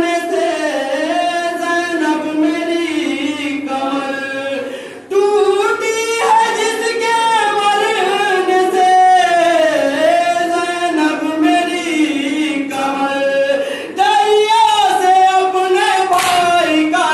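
Male voices chanting a nauha, an Urdu Shia lament, together into a microphone in a slow melodic line, with short breaks between lines about five and fourteen seconds in. Near the end a few sharp slaps come in: hands striking chests in matam.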